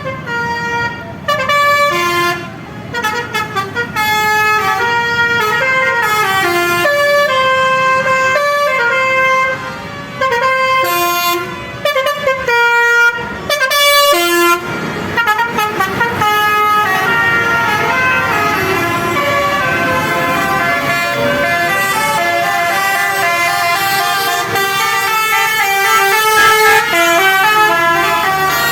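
Indonesian bus 'telolet' musical horn: a set of air trumpet horns sounding short pitched notes in quick melodic runs. There are a few brief breaks in the first half, and from about halfway the notes run together more densely and continuously.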